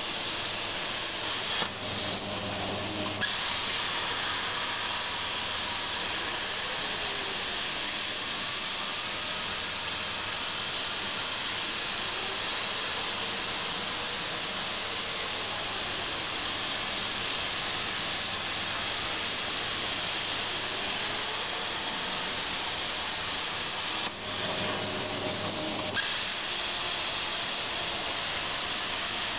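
CNC plasma cutter torch cutting metal plate, a loud steady hiss of the plasma arc. Twice, about two seconds in and again near the end, the hiss drops out for a second or two, leaving a low hum, then comes back with a sharp pop.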